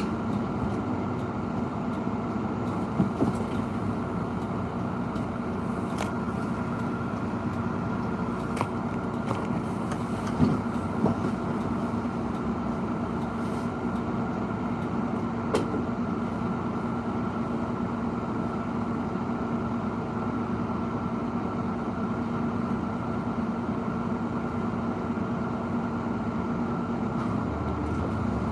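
A vehicle engine idling with a steady hum, with a few faint ticks.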